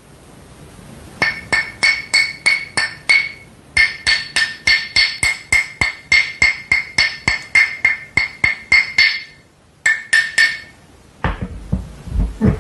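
Two sticks of chalk tapped against each other, about four sharp, ringing clinks a second, in a long run with a brief pause, then a few more. Near the end, a lower, duller handling sound.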